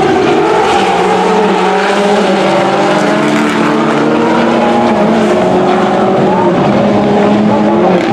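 Several World Rallycross Supercars racing through a corner, their turbocharged four-cylinder engines at high revs. Their overlapping engine notes rise and fall in pitch as they brake and accelerate.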